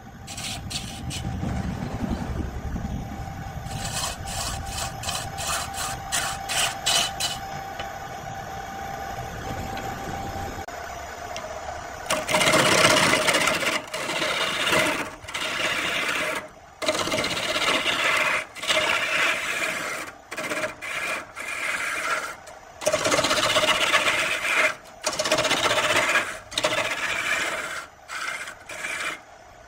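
Wood lathe spinning a blank while a hand-held turning tool cuts into it: the scraping, rasping sound of the tool shaving the wood. In the second half it comes in repeated passes of one to two seconds with short breaks between them.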